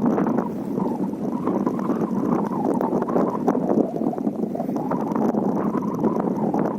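Wind blowing: a steady rushing noise that swells and eases slightly without ever dropping away.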